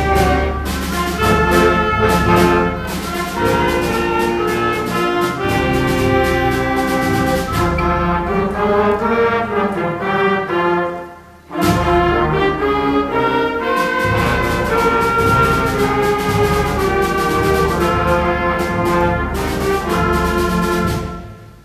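Junior high concert band playing, with trombones and trumpets to the fore. The music breaks off briefly about halfway through and comes back in loud. The final chord dies away near the end: the close of the piece.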